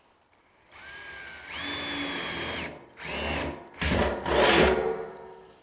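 Ryobi 18V cordless drill boring a 5/16-inch bolt hole into the steel wall of a 55-gallon drum, in three runs. First a steady motor whine that steps up in pitch, then a short second run, then a louder, rougher last run.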